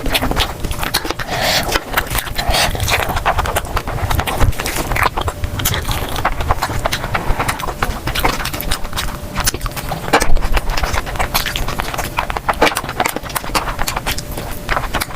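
Close-miked eating sounds: chewing and mouth smacks, a dense, continuous run of sharp clicks and crackles.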